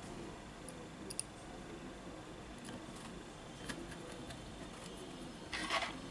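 Faint small clicks of metal tweezers against the phone's metal frame and parts, then a short rubbing scrape about five and a half seconds in as the phone is slid across the rubber work mat.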